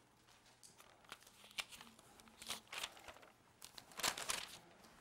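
Paper pages being turned and rustled, with several short rustles, the loudest about four seconds in.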